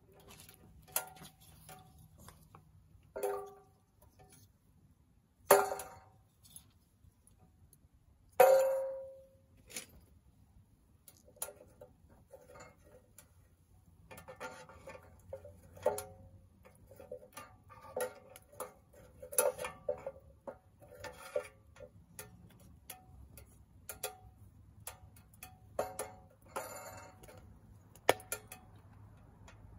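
Soomloom MECA small steel wood stove with its fire burning down to embers: irregular sharp ticks and cracks, each with a short metallic ring. The loudest come about five and eight seconds in, and smaller ones follow in quicker succession.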